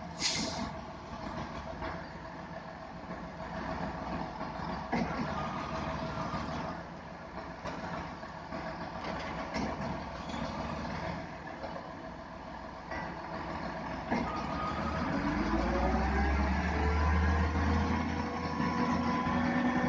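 Heavy diesel truck engine running, with a short hiss of released air right at the start. About fifteen seconds in, the engine revs up and runs louder.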